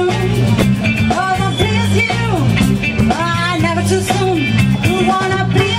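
Live band playing an upbeat song: electric guitars and bass over a steady beat, with a woman singing the lead line.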